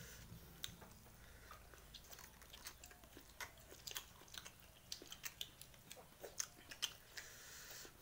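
Faint sounds of eating rice by hand: chewing with many small, sharp wet clicks, coming more often in the second half.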